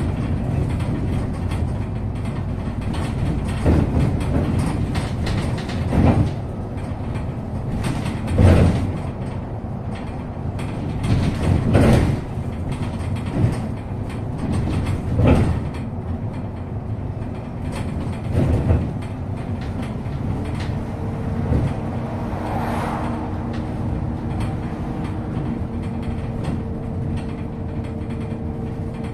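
A MAZ-215 articulated city bus heard from inside while it is under way: a steady diesel and road rumble, broken every few seconds by loud knocks and rattles of the body over bumps. About twenty seconds in, a steady humming tone sets in.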